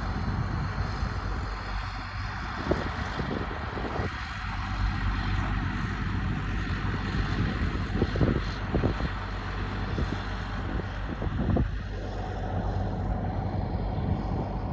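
Tractor engine running steadily while driving a baler that is picking up straw, with a few short knocks and clunks from the machinery.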